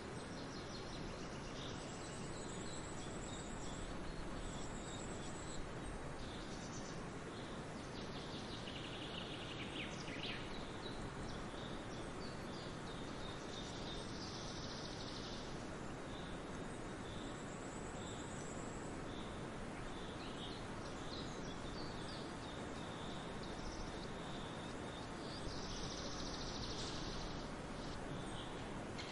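Steady open-air background noise, an even hiss, with scattered high chirps now and then.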